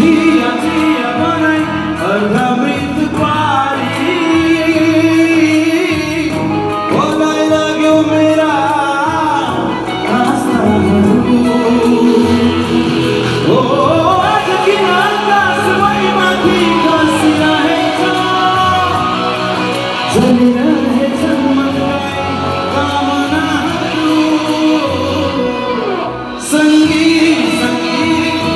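Male singer performing a Nepali song live into a handheld microphone over backing music, both amplified through a hall's sound system.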